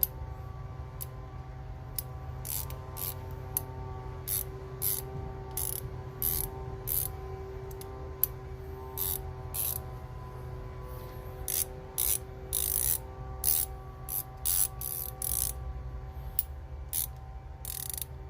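Fine-toothed 90-tooth ratcheting wrench being worked back and forth, giving many short runs of rapid clicking, some brief and some close to a second long, over a steady low hum.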